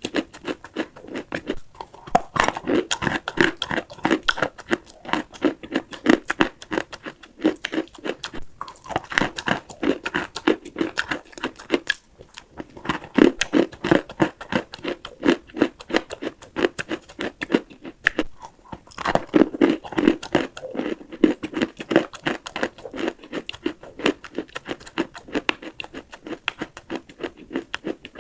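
Close-miked chewing of dry edible clay: rapid, crisp crunches as lumps are bitten and ground between the teeth, coming in bouts with brief pauses between them.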